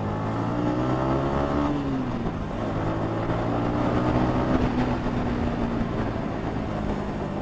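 Yamaha XSR155's single-cylinder engine running under way. Its pitch climbs for nearly two seconds, drops sharply, then holds steady and slowly falls, over a steady rush of riding noise.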